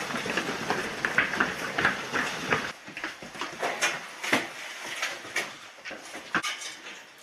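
Many boots hurrying along a hard corridor floor, a fast run of footfalls and rustle. About three seconds in this gives way to quieter, scattered knocks and clatter as kit is pulled off metal storage shelves.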